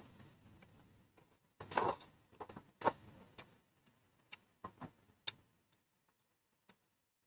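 Close-up eating sounds from noodle soup: a few short slurping and chewing noises, then scattered small clicks, dying away after about five seconds.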